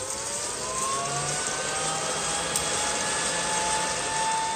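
Aillio Bullet coffee roaster's cooling tray running on a freshly dropped batch of roasted beans: a steady rush of fan air with faint whines that slowly rise in pitch.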